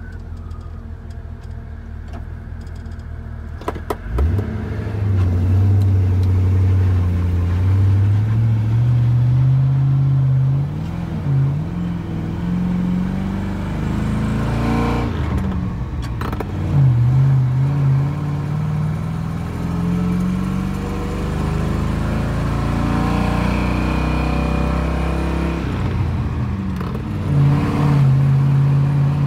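Engine of a squarebody Chevy K30 pickup, LS-swapped, heard from inside the cab while it hauls a heavy load of wood. After about four seconds of lower, steady running it pulls away, and its pitch climbs through each gear and drops back at each upshift, about three times.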